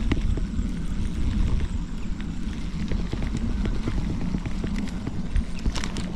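Wind buffeting the microphone in a steady, gusting low rumble, with a few light clicks and knocks from handling a fishing rod and reel, a small cluster of them near the end.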